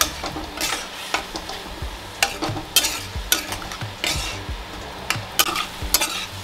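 A nylon spatula scraping and stirring mango pieces in a spice paste in a non-stick kadai, while the mixture sizzles as it fries down (the masala being sautéed). The scrapes are irregular, about one or two a second, over a steady sizzle.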